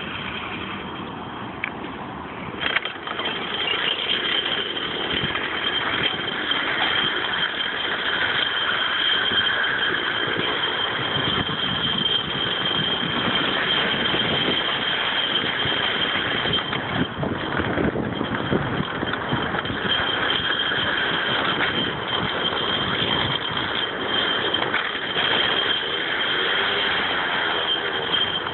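Metal rollers of a roller slide rattling continuously under a rider sliding down: a dense clatter of many small clicks with a thin, steady high whine over it. It grows louder about three seconds in and keeps going.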